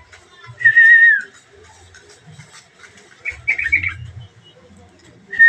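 Yellow-vented bulbul chirping: a quick burst of short chirps about three and a half seconds in. Earlier there is one loud wavering whistle, dipping at its end, about half a second in, and the same whistle begins again at the very end.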